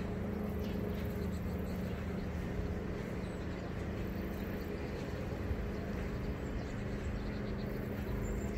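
Steady low mechanical hum holding one pitch over a low rumble.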